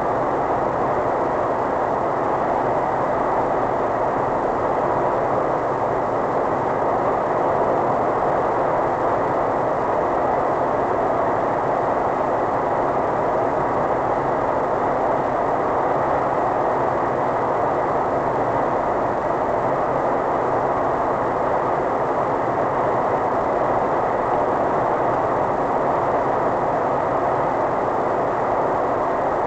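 Steady road and tyre noise with engine hum inside a car's cabin while cruising on a motorway, picked up by the windscreen dashcam.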